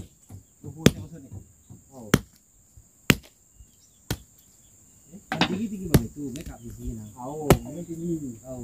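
Machete (parang) chopping wood, about eight sharp strokes roughly a second apart, over a steady high whir of crickets.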